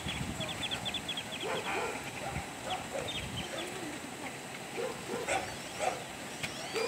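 A dog barking at intervals, with a quick run of bird chirps near the start.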